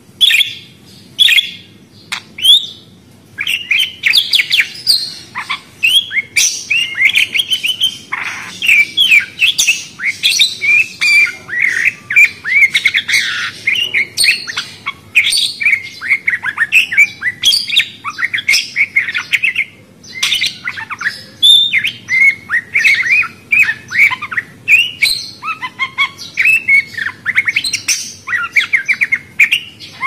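A flock of budgerigars chattering: a few separate chirps in the first three seconds, then dense, overlapping warbling and chirping.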